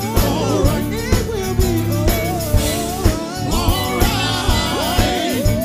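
Live gospel band: sung vocals with keyboard over a steady drum beat.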